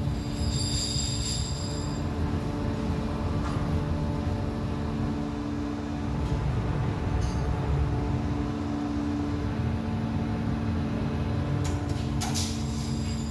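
Steady hum and low rumble of die-casting machinery running, with a few brief sharp clicks near the end.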